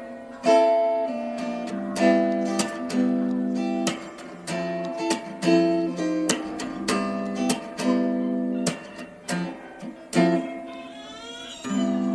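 Acoustic guitar music: strummed chords with sharp plucked attacks in a steady rhythm.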